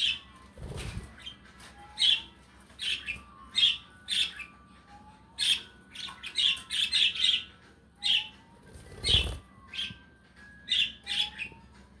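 Budgerigars chirping: a run of short, sharp chirps, one or two a second, with faint short rising calls in between. Two low thumps, about a second in and again near the end.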